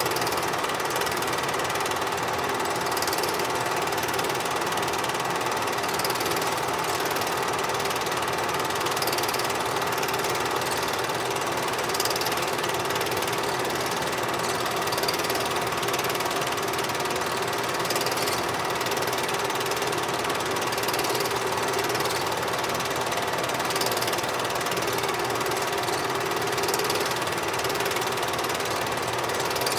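Super 8 film projector running: a steady mechanical whirring and clatter from the film transport, with no other sound.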